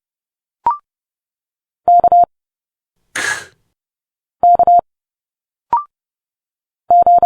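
Morse code letters sent at 30 words per minute as quick groups of steady mid-pitched beeps, three letters about two and a half seconds apart. Between the letters come short recorded speech sounds for them: a clipped consonant, a hissing 's'-like sound, and another clipped consonant.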